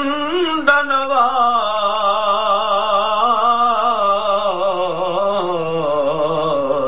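A man's voice singing an Urdu naat with no instruments, drawing out a single word into one long ornamented note whose pitch wavers and slowly falls, breaking off near the end.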